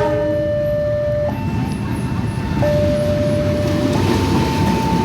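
Level crossing warning alarm sounding, a two-tone electronic signal alternating between a low and a high note about every second and a half, over the steady rumble of a passing train. A brief ringing blast is heard right at the start.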